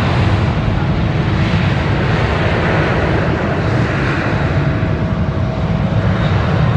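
Jet airliner's engines running as it passes, a broad rushing hiss that swells a little midway, with strong wind buffeting the microphone in a choppy low rumble.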